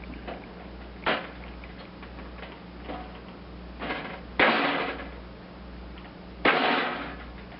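Hand-tool work on a tin roof sheet: a few light clicks, then two sharp loud knocks about two seconds apart, each trailing off into a short rattle.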